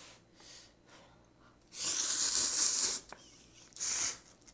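A person slurping instant noodles: one long, airy slurp starting about two seconds in, then a shorter slurp of broth from a small bowl near the end.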